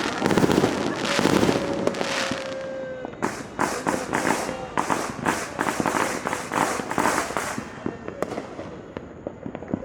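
Many fireworks and firecrackers going off at once. Dense bangs and crackling give way about three seconds in to a run of quick, sharp pops, which thin out to scattered bangs near the end.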